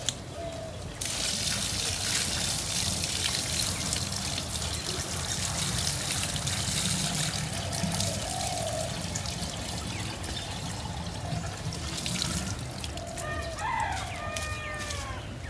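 Water poured from a plastic bucket in a steady trickling stream that lasts about eleven seconds and then stops.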